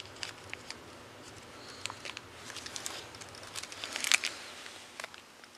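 Plastic Laffy Taffy candy bag crinkling lightly as it is handled, in scattered small crackles that come a little thicker about four seconds in.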